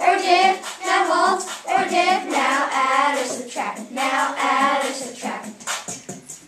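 A group of children singing a rap chorus to music, in short repeated phrases.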